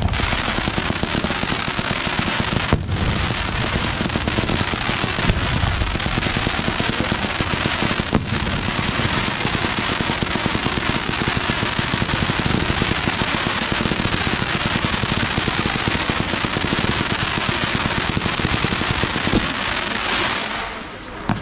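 Fireworks display: a dense, continuous barrage of crackling and bangs, many small reports packed together without a break. It drops off briefly near the end.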